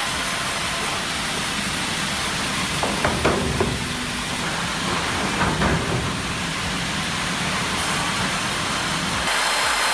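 Heavy machinery running with a steady rumble and hiss. A few knocks and short squealing glides come about three seconds in and again around five and a half seconds.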